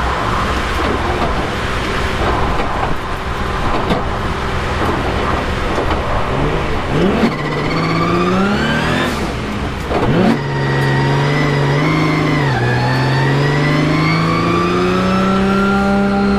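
The twin-turbo 3.8-litre VR38DETT V6 of a Nissan 200SX drift car, heard from inside the cabin while drifting. The engine runs under load over a steady hiss, and the revs climb twice midway. The revs fall sharply about ten seconds in, then hold high and slowly rise toward the end.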